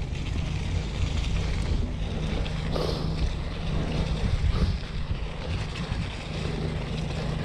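Wind rushing over the microphone and the rumble of mountain bike tyres rolling down a dirt trail.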